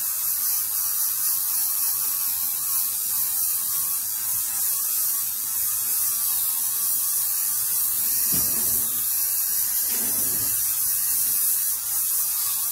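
Small handheld rotary grinder running steadily with a hissing grind as it dresses the steel blade of an electric pruning shear, taking off the edge that has rolled over and been chewed by branches.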